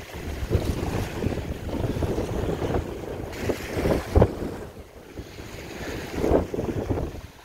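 Wind buffeting the microphone over waves washing at the shore, in uneven gusts with a brief louder gust about four seconds in.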